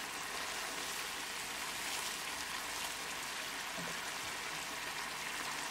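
Tomato masala gravy with salmon pieces simmering in an open pan on medium-low gas: a steady, fine bubbling sizzle.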